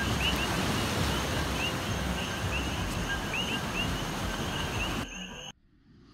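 Steady rush of ocean surf breaking on rocky shoreline, with wind on the microphone, and short high chirps repeating throughout. The rush cuts off about five seconds in.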